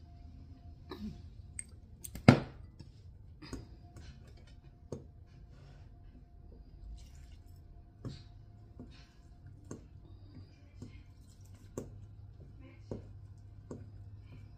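A drinking glass set down hard on a counter with a sharp knock about two seconds in, then light taps roughly once a second of a spoon against a mixing bowl as banana cake batter is stirred by hand.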